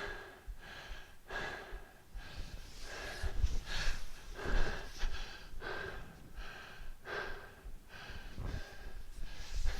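A man breathing hard and rhythmically from exertion, short noisy breaths in and out about twice a second, with a few dull low thumps about three and a half and four and a half seconds in.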